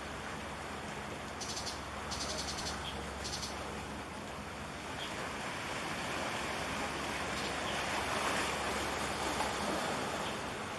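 Steady harbour-side ambience: the wash of sea water with wind on the microphone, over a faint low steady hum. A few short high-pitched buzzes come about two seconds in.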